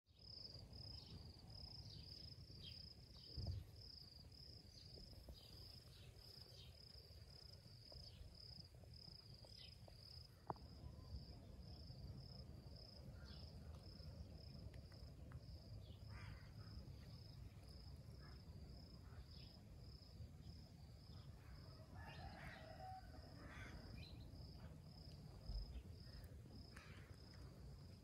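Faint outdoor ambience: an insect chirping in an even high pulse about twice a second, with scattered short bird chirps over a low rumble. A few soft knocks stand out, the loudest a little over three seconds in and again near the end.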